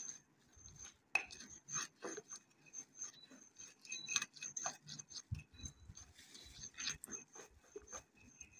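Pestle grinding a wet paste in a mortar: faint, irregular scraping and clinking strokes.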